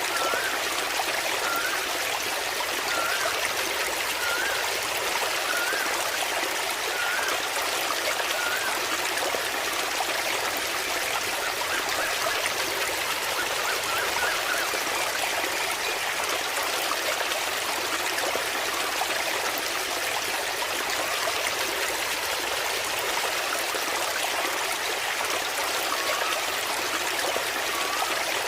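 Steady, even rush of a small waterfall splashing into water. A faint short chirp repeats every second or so during the first nine seconds and again near the end.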